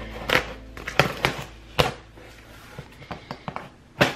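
Packing tape on a cardboard shipping box being slit and torn open with a knife: a handful of short, sharp cutting and ripping strokes, about four in the first two seconds and one more near the end.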